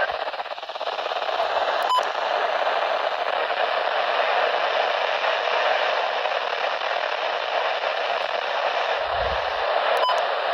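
Steady hiss of radio static from a weather radio receiver on a weak signal between broadcast messages, with a couple of short clicks and a brief low thump near the end.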